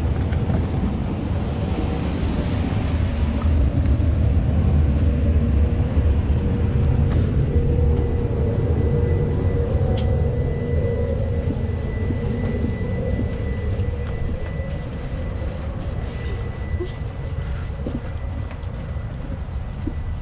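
Steady low rumble of a Bombardier CRJ1000 airliner's cabin, with a faint even hum through it and a few light clicks, easing slightly towards the end.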